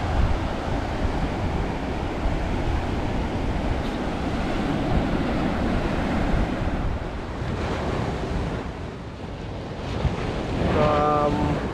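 Sea surf breaking and washing up a sandy beach, with wind buffeting the microphone.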